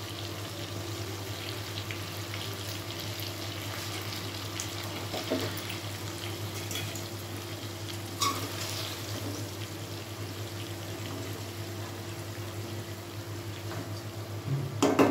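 Mutton pieces sizzling gently in oil in a stainless steel kadai, with a steady low hum underneath and a few light clicks of a slotted spoon stirring against the pan. A brief louder sound comes near the end.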